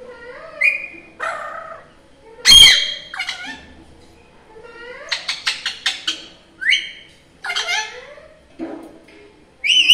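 Alexandrine parakeet giving a run of squawks and chattering calls, several sliding up or down in pitch. The loudest squawk comes about two and a half seconds in, with a quick run of short notes in the middle.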